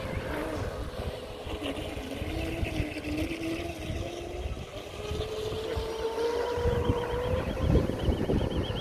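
Radio-controlled model speedboats running on a pond: a thin motor whine that wavers and climbs in pitch as a boat speeds up, over a low rumble. A high warbling tone comes in near the end.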